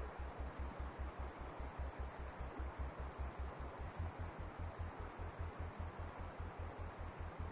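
Brainwave-entrainment tone track: a low hum pulsing on and off several times a second, over a steady hiss. The pulse rate is meant to draw the brain toward alpha and theta waves. About four seconds in, the hum steps slightly higher in pitch.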